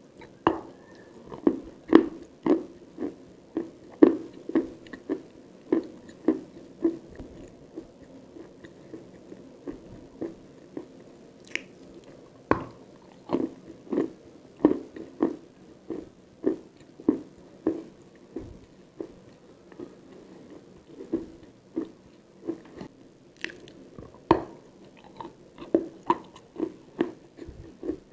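Close-miked chewing of crunchy edible clay-chalk, with sharp crunches about twice a second over wet mouth sounds. The crunches ease off for a few seconds twice, then pick up again.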